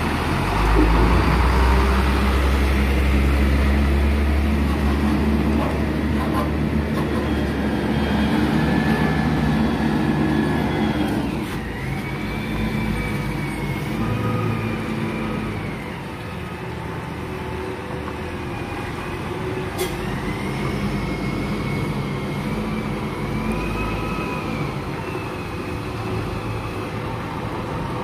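Diesel engine of a Hino container truck running close by with a heavy low rumble. After about eleven seconds it drops to a quieter rumble of a truck moving across the yard, with a faint wavering high whine over it.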